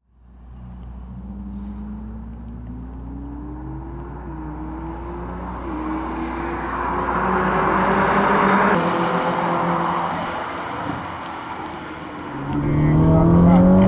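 Ferrari SF90 Stradale's 4-litre twin-turbo V8 accelerating hard, its note climbing in pitch with brief dips along the way. A louder, deeper engine note cuts in about a second before the end.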